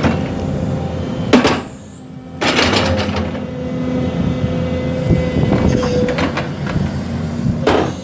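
The 2005 Hyundai 180LC-7 excavator's Mitsubishi six-cylinder turbo diesel engine runs steadily as the hydraulics work the boom, stick and bucket. Sharp knocks stand out over it: a loud one just over a second in, a longer burst about two and a half seconds in, and another near the end.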